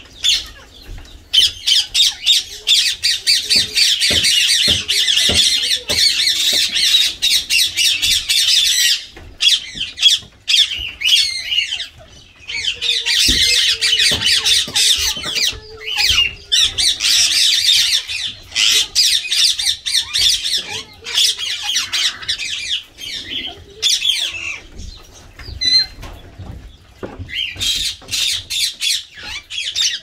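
Indian ringneck parakeets squawking: long spells of rapid, harsh screeching calls lasting several seconds each, three main spells with short pauses and scattered single squawks between.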